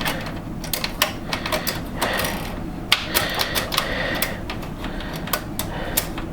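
Irregular sharp metallic clicks and scraping as a desktop PC case's metal expansion-slot cover is handled and fitted back into place.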